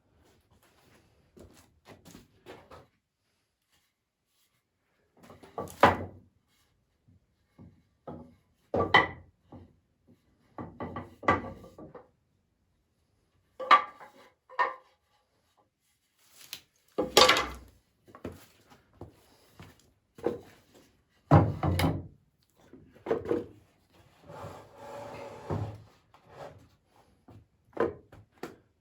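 Poplar boards being handled and fitted together: scattered separate wooden knocks and clunks, with a longer scraping rub of wood on wood about 24 seconds in.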